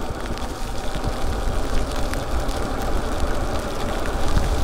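Wind rumbling over the microphone, with the hiss of e-bike tyres on wet pavement, while riding at about 20 mph in the rain. The rumble swells briefly near the end.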